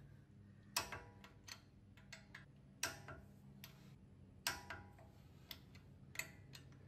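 Torque wrench clicking as the bolts of a wheel spacer are tightened to torque: separate sharp metallic clicks, irregularly spaced, under half a second to about a second and a half apart.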